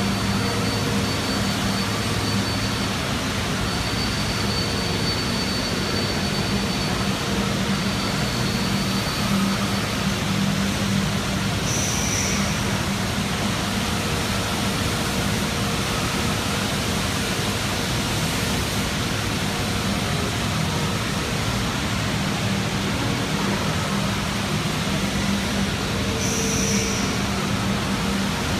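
Steady machine-shop noise from running CNC machinery: an even hiss with a low hum underneath. A short, higher hiss comes once about twelve seconds in and again near the end.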